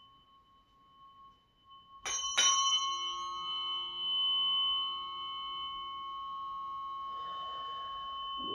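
Tuning fork struck twice in quick succession about two seconds in, then ringing on with several clear steady tones.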